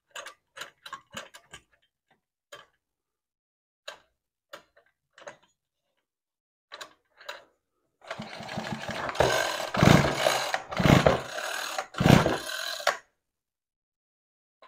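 Ryobi Expand-It two-stroke trimmer engine turned over by hand with a pulled cord, with no recoil starter fitted: about five seconds of rasping cranking noise with three heavy thumps about a second apart, after a few light clicks of parts being handled.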